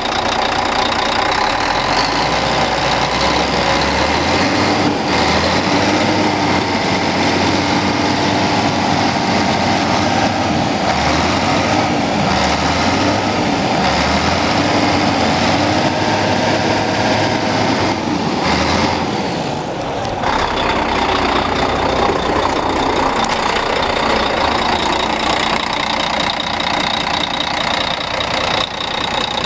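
Volvo FH12 420's 12-litre straight-six diesel engine idling steadily, heard close up in the open engine bay. Its low tone shifts about two-thirds of the way through.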